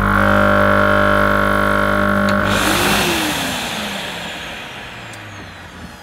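Hoover Jet N Wash carpet washer's solution pump running with a loud droning buzz while being primed, with no liquid through it yet. About two and a half seconds in there is a click and the drone gives way to a hiss that slowly fades.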